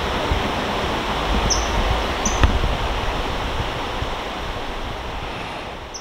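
Shallow stream water running steadily over rocks, with three short high, slightly falling calls from a common kingfisher, two in the first half and one near the end. One sharp knock comes about two and a half seconds in. The sound fades away near the end.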